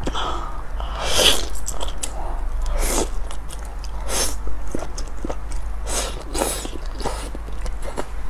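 Close-miked eating sounds: chewing with a string of short, sharp slurps and bites, about one every second.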